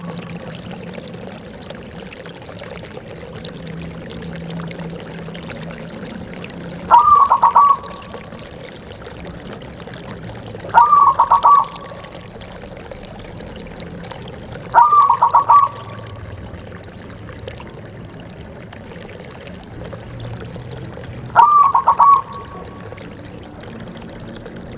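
Zebra dove (perkutut) cooing: four short calls, each a quick rising note followed by a run of rapid pulsed notes, spaced about four to six seconds apart, over a steady low background noise.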